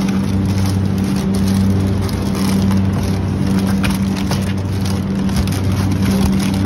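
Steady low hum of supermarket freezer cases, with a few faint rustles and clicks over it.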